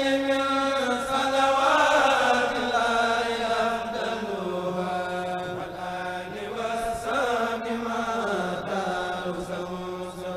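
A Mouride kourel of men's voices chanting a khassida unaccompanied through microphones. The chant moves in long held notes that slide slowly up and down.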